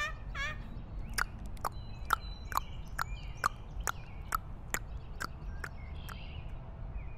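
The tail of a horse's whinny, a quivering call, then hooves clip-clopping in a steady walk of about two steps a second, over a steady low rumble.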